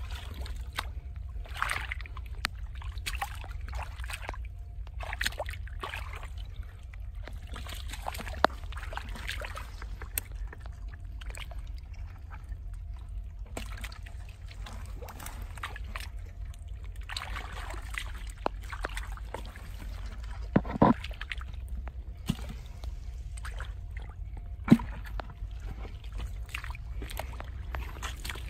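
Hands sloshing and splashing through shallow muddy water in irregular bursts, with a few sharp knocks, over a steady low rumble.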